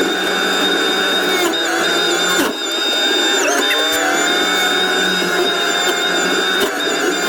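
Compact track loader with a forestry mulcher head running: a steady engine note under a high-pitched whine that dips briefly in pitch a few times, with a short break about two and a half seconds in.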